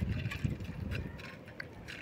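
Cats eating wet cat food from metal plates: small chewing and licking clicks over a low rumble that fades after about a second.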